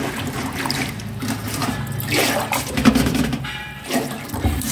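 Water sloshing and splashing as a hand swirls and rubs brown rice grains in a woven bamboo basket sitting in a basin of water, washing the rice. Near the end the basket is lifted and water drains out through its weave.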